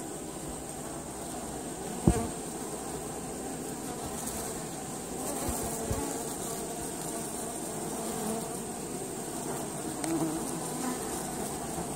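Honey bees buzzing steadily around a hive entrance, with a single sharp knock about two seconds in.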